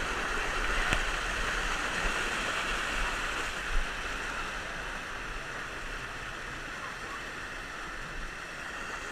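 River water running steadily, with one brief sharp knock just under four seconds in.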